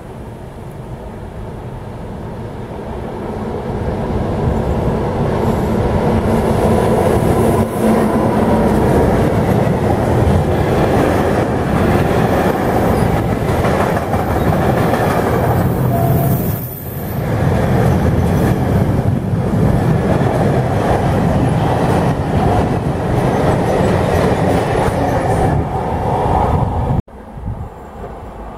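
A fast freight train passing close through a station, its noise building over the first few seconds into a long, loud rumble of wagons rolling over the rails. A brief high-pitched squeal comes about halfway through. The sound cuts off abruptly near the end.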